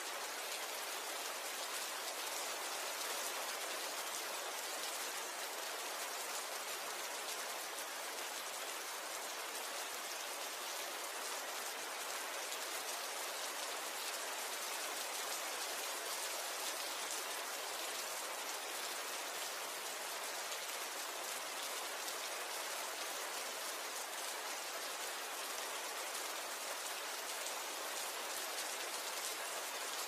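Steady rain falling: an even hiss of countless small drops, unchanging in strength, mostly in the higher pitches with little low rumble.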